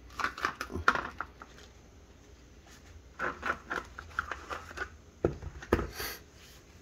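Handling noise as a Canik pistol is lifted out of its plastic hard case: small clicks and crinkles of plastic and the paper tag, then two sharper knocks near the end.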